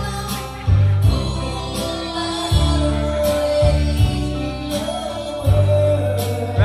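Live band music with a singer: bass notes and a beat under a sung melody.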